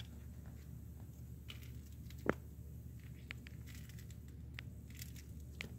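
Two kittens play-fighting on a fleece towel: faint rustling and scratching of paws and claws on the fabric, with scattered small clicks and one sharper tap about two seconds in, over a steady low hum.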